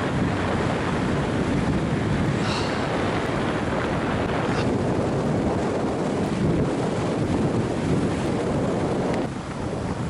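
Wind rushing over the microphone of a camera carried by a downhill skier, mixed with the hiss of skis sliding on groomed snow; it eases briefly near the end.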